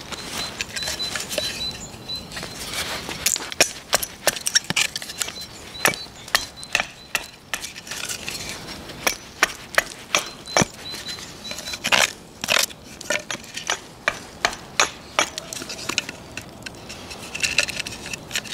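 Hatchet chopping and splitting a dry branch on a tree-stump chopping block: sharp woody strikes, roughly one or two a second, with cracks as the wood splits.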